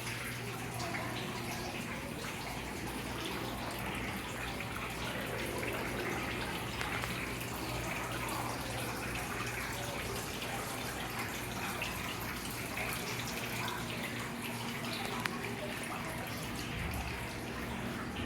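Rain falling steadily, with a low steady hum underneath.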